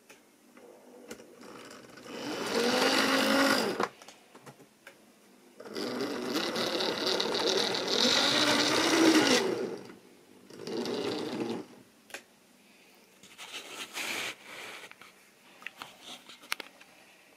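Model train's small electric motor whirring as it hauls coaches along the track, in several spells with the pitch rising and falling as the speed changes, with scattered clicks.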